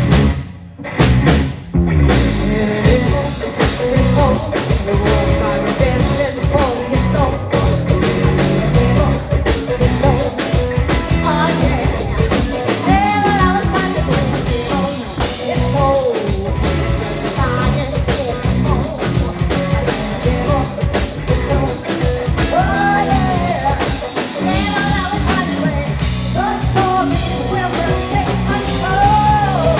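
Live rock band playing: drum kit, bass and two electric guitars. After a couple of seconds of separate hits the full band comes in, and a singer's voice joins about twelve seconds in.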